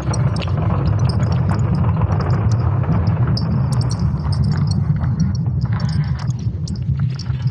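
Space recording of Earth's magnetic environment made audible: a dense, steady low rumble with irregular crackles, clicks and faint high chirps scattered over it.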